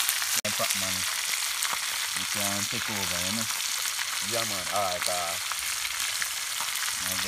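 Whole tilapia frying in hot oil in a pan, a steady sizzle.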